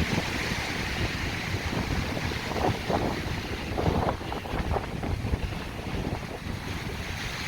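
Strong gusting wind, about 15 m/s, buffeting the microphone and the Durston X-Mid Solid 1P tent fabric in a constant rumble, with stronger gusts about two and a half and four seconds in.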